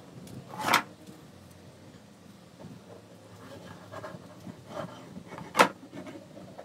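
Wood being handled on a workbench: a short scraping slide under a second in, a few light clicks and taps, then one sharp wooden knock about five and a half seconds in.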